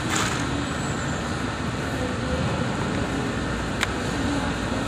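Steady ventilation and air-conditioning noise of a restaurant dining room, with a sharp click just after the start and another about four seconds in, as a fried chicken flauta is dipped and bitten.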